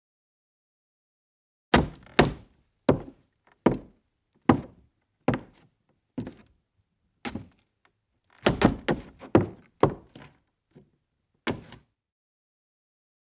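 Footsteps in boots: separate footfalls begin about two seconds in, about one a second and slowing, then a quicker run of several steps a little past halfway, and a last lone step near the end.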